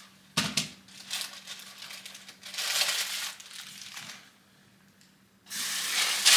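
A plastic bag of dried navy beans being crinkled and torn open, with a thump about half a second in. A steady, dense rustling hiss starts about five and a half seconds in.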